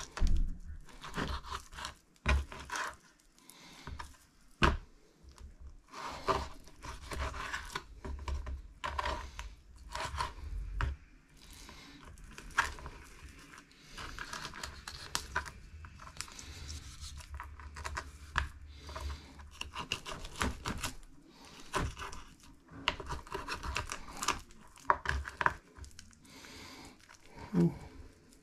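Kitchen knife cutting raw pork chops on a wooden chopping board: irregular clicks and taps of the blade on the board, with scraping and the tearing of meat as bone and gristle are cut out.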